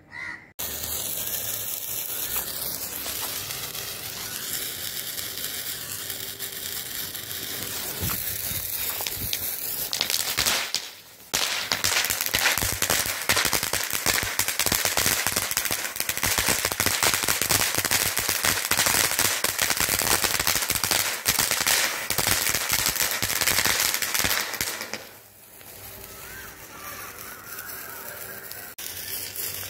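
Crackling cone fountain firework (a multi-colour ground fountain) burning: a steady rushing hiss of sparks. After a short break a third of the way in, a louder stretch comes, thick with rapid crackling pops. Near the end it dies down to a softer hiss.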